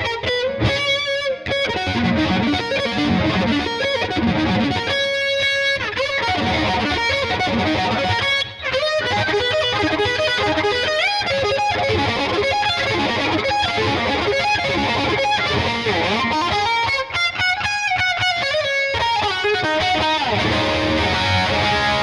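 Lavish CMRL-FL electric guitar played through a distorted tone, with quick lead runs and bent, wavering notes, and a brief break about eight and a half seconds in.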